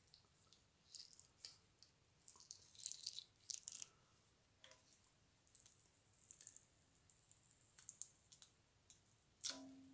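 Faint scattered clicks and short scrapes of a thin hand tool working sealant into the seam between the timing cover and the engine block, with one sharper metallic tick and brief ring near the end.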